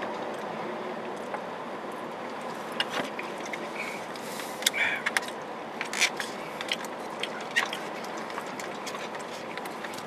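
Plastic forks clicking and scraping against takeout food containers, with chewing, over a steady background hum. The clicks are scattered, busiest from about three to eight seconds in.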